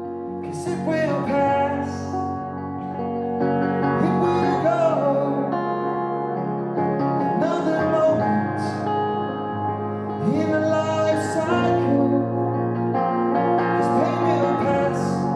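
Live instrumental passage on electric guitar: a melody of sliding, bent notes over held chords, with echo.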